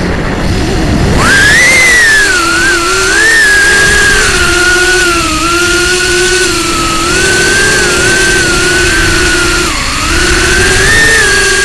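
Micro FPV quadcopter's motors and Emax Avan 2-inch propellers whining, the pitch rising and falling with the throttle. The whine climbs back in about a second in and dips briefly near the end.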